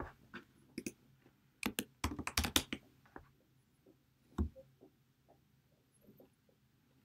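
Computer keyboard keys tapped in a quick run of clicks as a password is typed, then a few single key taps, the heaviest about four and a half seconds in.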